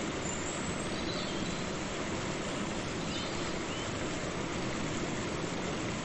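Waterfall: a steady, even rush of falling water, with a few faint high chirps over it.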